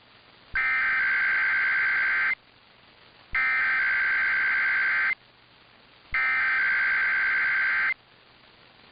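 Emergency Alert System SAME header: three identical bursts of buzzing digital data tones, each just under two seconds long, about a second apart. They open a Required Weekly Test.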